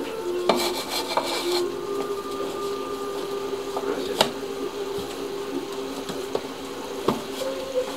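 Hands in plastic gloves pressing and flattening biscuit dough on a counter with a clear container: a brief crinkly hiss near the start and three sharp knocks spread through, over a steady background of held low tones.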